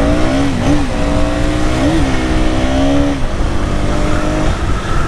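Dense low rumble of vehicle noise, with a held, wavering pitched tone over it for the first three seconds that fades out near the end.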